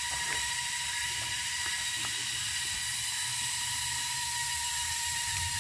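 Steady background hiss with a low rumble and a faint high steady whine, broken only by a few faint ticks.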